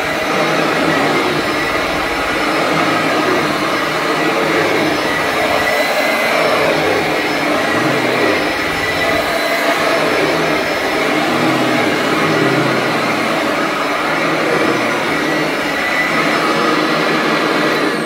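Royal commercial heavy-duty upright vacuum cleaner running steadily while pushed over carpet, a loud, even motor whine over rushing air.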